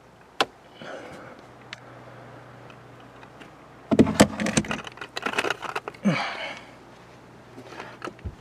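Handling noise from a person shifting about in an attic: knocks, clicks and rustling, busiest about four to five seconds in, over a faint steady hum.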